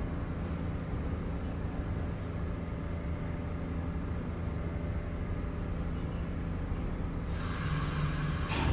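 New York City subway train rumbling steadily at the station. About seven seconds in a loud hiss starts suddenly and lasts over a second, with a short low hum beside it.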